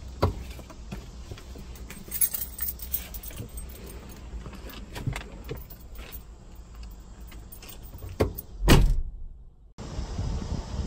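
Keys jangling with small clicks and rustles inside a parked car, then a car door shutting with a loud thump near the end. After a short gap, a steady hiss of open air.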